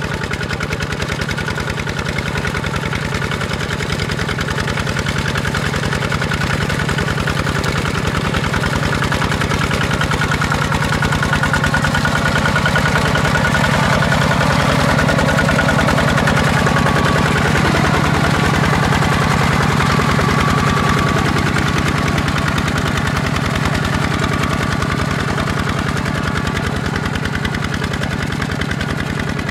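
ZT 155 single-cylinder diesel engine of a walk-behind tractor running steadily while working a muddy paddy. It grows a little louder about midway and eases off slightly near the end.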